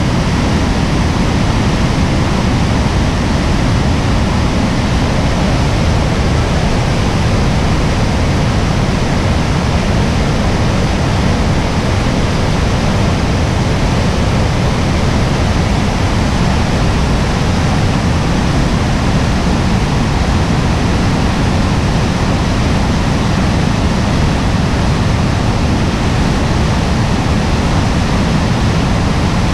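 Class 6 rapids of the upper Niagara River: a loud, steady rush of churning white water with a deep rumble underneath.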